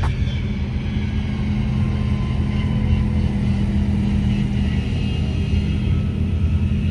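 Steady engine and road rumble of a moving vehicle, with a constant low hum.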